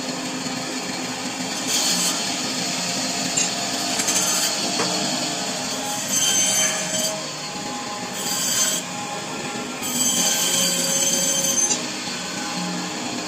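Meat band saw running steadily, with about five louder, rasping bursts of a second or two as the blade cuts through a skipjack tuna into pieces.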